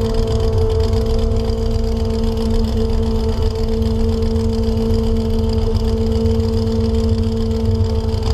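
Chevrolet S-10's engine idling steadily, a strong low rumble with an even hum that holds one pitch throughout.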